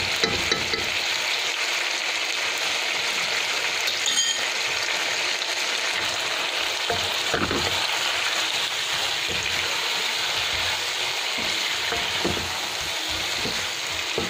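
Chicken pieces and chopped tomato frying in a pan with a steady sizzle, stirred with a wooden spatula that knocks and scrapes against the pan now and then.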